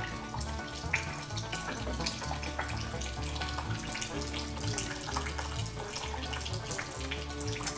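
Old oil and fuel draining from a 1967 Ford F100 into catch containers: a steady running trickle of liquid. Background music with a steady beat plays under it.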